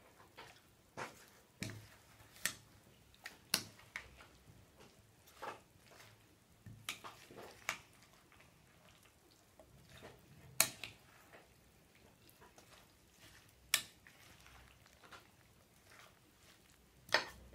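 A serving spoon stirring a creamy chopped fruit and potato salad in a glass bowl: soft wet scrapes with irregular clicks of the spoon against the glass, a few of them louder knocks.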